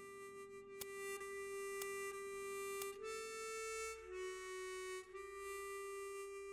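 Background music: a slow harmonica tune of long held notes, with a soft tick about once a second during the first three seconds.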